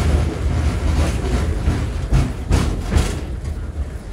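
Tram running on rails, heard from inside the car: a steady low rumble with a few sharp knocks from the wheels and running gear about halfway through.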